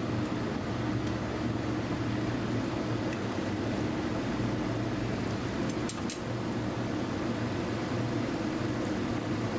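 Steady hum of a gas cooking range while noodles are stir-fried in a steel frying pan, with a light clink of the utensil on the pan about three seconds in and a few more around six seconds in.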